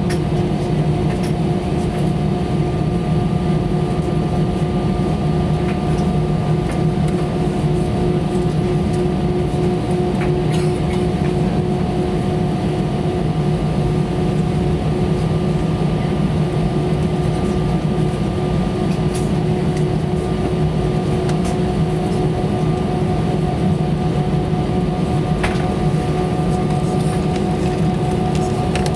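Steady cabin noise of an Airbus A320 with its engines running, an even rumble carrying several steady hum tones, with a few faint clicks.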